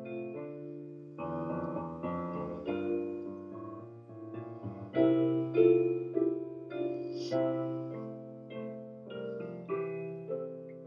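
Slow piano music: held chords and single notes that change every second or so, a little louder around the middle.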